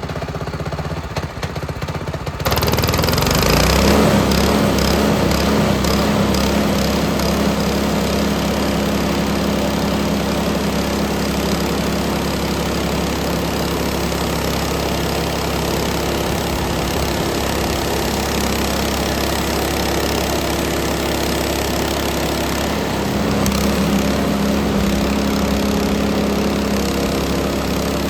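Frontier OS18 portable band sawmill running: its small gas engine runs at low speed, then revs up sharply about two and a half seconds in as the band blade spins up and saws through a black walnut branch, a steady loud engine-and-blade drone.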